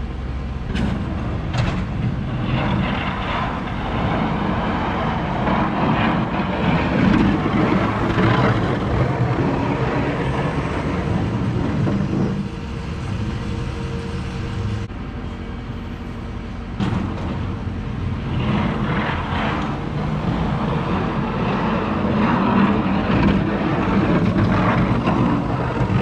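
Pickup truck engine running steadily, the sound swelling and dipping in level without stopping.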